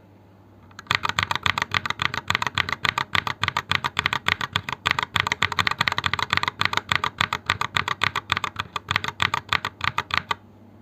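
Fast typing on a mechanical keyboard with stock, unlubed Holy Panda tactile switches and Keychron OSA-profile keycaps in a Noir OLV 75 board: a rapid, dense run of key clacks that starts about a second in and stops shortly before the end.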